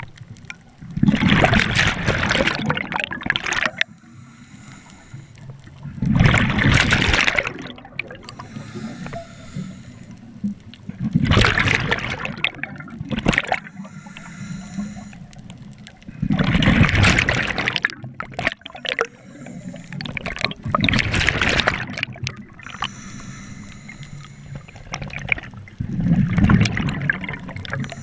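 Scuba diver breathing through a regulator underwater: six rushes of exhaled bubbles, one every four to five seconds, each lasting about two seconds, with quieter water noise in between.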